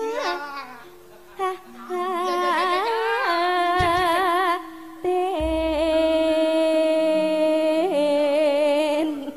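A Javanese sinden (female gamelan singer) singing a slow, drawn-out melismatic phrase with vibrato, ending on a long held note from about five and a half seconds in, over a steady lower tone. Deep low thuds sound about four seconds in and again at five and a half.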